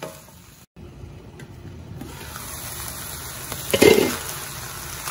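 Chicken and vegetables sizzling in a frying pan, growing louder, with a spatula stirring and scraping against the pan about four seconds in. The sound drops out briefly under a second in.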